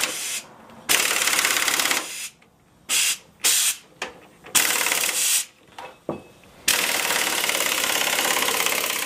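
Air impact wrench with a socket extension hammering on a rusted bolt at the truck's frame, in trigger bursts: a burst at the start, several short stabs in the middle, then a long steady run through the last two seconds or so.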